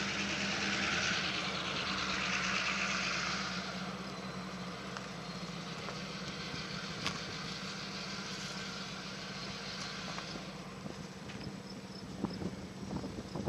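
Steady low engine hum, with a rushing noise that is strongest for the first few seconds and then fades away.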